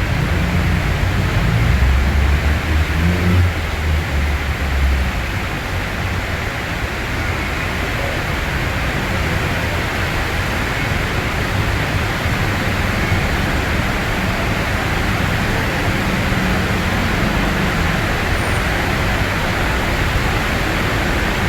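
Steady heavy rain hissing, with road traffic running below. A vehicle's low engine rumble stands out in the first few seconds, and a fainter one passes later.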